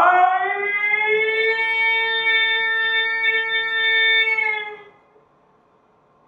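A man's voice holding one long, high wordless note. It slides up in pitch over the first second, stays steady, and stops about five seconds in.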